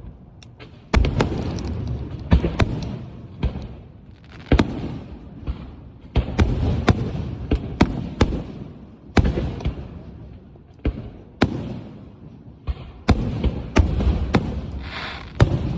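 Aerial fireworks bursting overhead: an irregular series of sharp bangs, several close together, each trailing off in a low rumbling echo.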